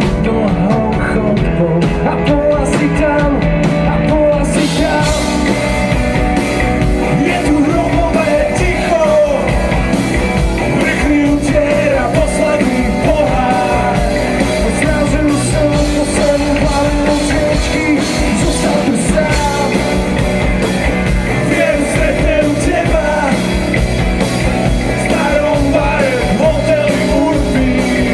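A live rock band plays: electric guitar, electric bass, keyboard and drums, with a male voice singing. The sound grows fuller and brighter at the top about four seconds in.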